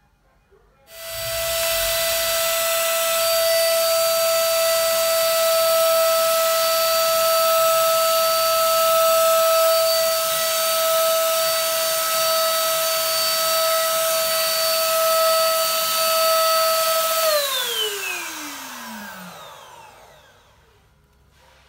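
Mollar MLR ESG 300 electric spray gun switched on about a second in, its motor running with a steady high whine over a rushing hiss of air as it sprays paint. Near the end it is switched off, and the whine falls in pitch and fades as the motor spins down.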